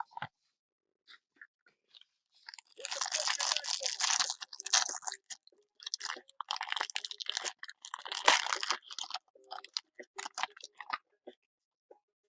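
Crinkling and tearing of the plastic wrapping on a sealed sports card box or pack as it is opened by hand, in two long bursts of crackling with scattered crackles after them.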